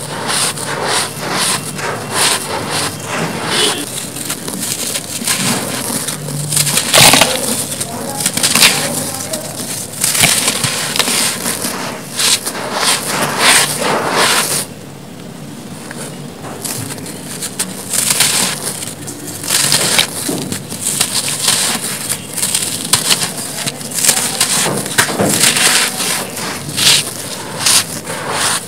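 Dry, gritty sand-cement powder and soft crumbled cement blocks crunching and crackling as hands scoop, squeeze and crumble them, with many sharp crisp crunches. About halfway through it goes softer and quieter for a couple of seconds, then the crunching picks up again.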